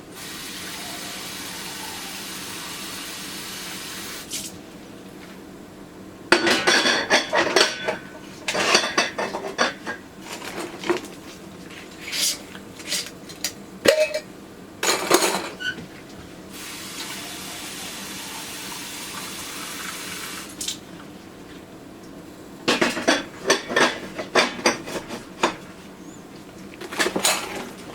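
Water running steadily from a kitchen faucet in two spells, one at the start and one about two-thirds through. Between and after them, glass canning jars clink and knock against metal in quick clusters of sharp taps.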